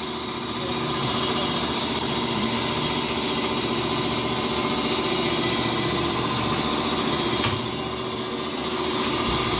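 A machine motor running steadily with a constant hum, with one sharp click about three quarters of the way through.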